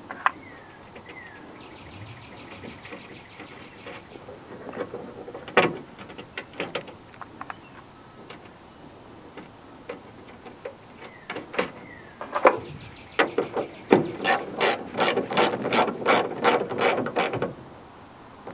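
Hand socket ratchet clicking as it tightens the nut on the starter solenoid's power-wire terminal, a steady run of about three clicks a second near the end. Before it come a few scattered metallic clicks as the wire and nut are fitted to the post.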